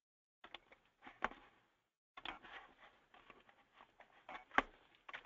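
Faint, scattered clicks of a computer mouse and keyboard as a web form is filled in, the two sharpest about a second in and near the end.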